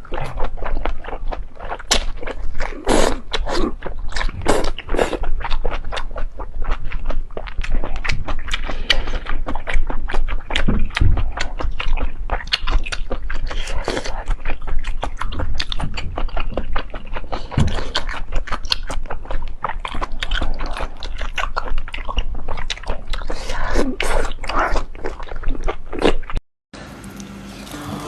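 Close-miked chewing and biting of octopus: a dense run of quick wet clicks and smacks. It breaks off abruptly near the end.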